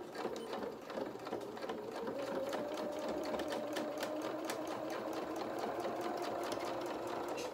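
Domestic electric sewing machine running in straight stitch, a steady motor hum with quick, even needle ticking. It is sewing a few stitches forward and a few back to secure a seam.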